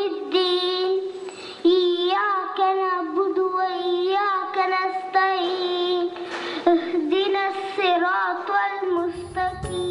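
Children singing a slow melody with long held notes.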